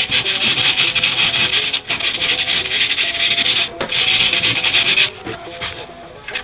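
Sandpaper rubbed by hand over a patched spot on a 1955 Ford's rear fender: a steady scratchy hiss in long strokes, with two brief breaks, that stops about five seconds in.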